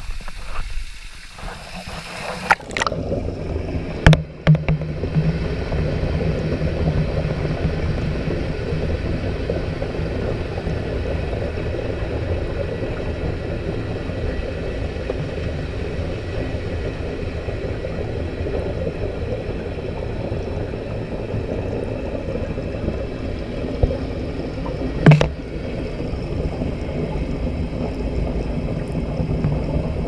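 Top-load washing machine tub filling with water, heard from inside a GoPro's waterproof housing: a muffled, steady rush of water with a low hum underneath. Two sharp knocks, about four seconds in and again about 25 seconds in.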